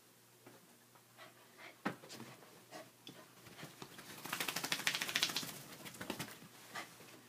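A dog scrambling about on a bed: scattered knocks and scuffles, then a run of rapid clicking and scratching lasting about a second and a half, from its movements on the bedding.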